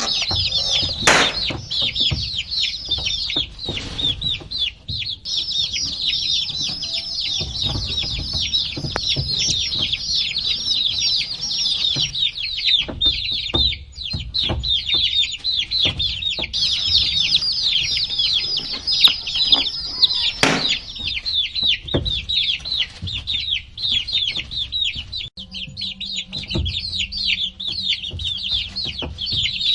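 A group of baby chicks peeping nonstop, many short high chirps overlapping one another, with a few brief knocks.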